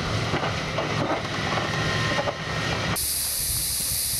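Tracked hydraulic excavator's diesel engine running, with a low rumble and several short knocks and clanks as it works on rock. About three seconds in, the sound changes abruptly to a steady high hiss.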